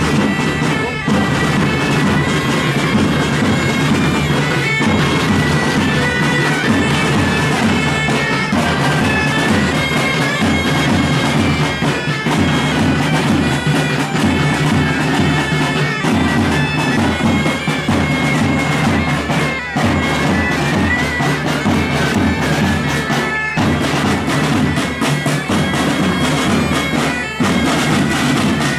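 Several bagpipes of a marching pipe band playing a tune over their steady drones, with short breaks between phrases every few seconds.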